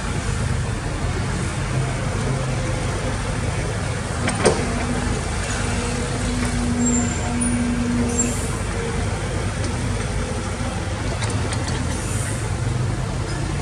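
Heavy diesel earthmoving machinery running steadily, with a low engine rumble. There is one sharp knock about four and a half seconds in, and a steady tone for about three seconds after it.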